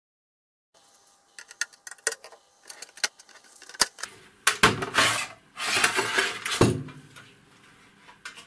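Metal clicks and clinks from handling the sheet-metal case of a Boeing 777 cabin pressure controller, starting about a second in. About halfway through come two longer, louder scrapes as the cover comes off the chassis.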